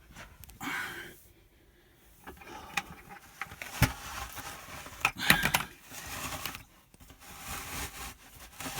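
An oil drain pan being shifted into place under the oil filter: scattered scrapes, clicks and knocks, with one sharp knock about four seconds in.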